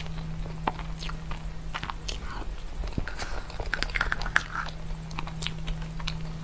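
Close-up eating sounds: chewing and wet mouth clicks on a soft, creamy layered dessert, with small clicks and scrapes of a metal spoon in a plastic cup. A steady low hum runs underneath.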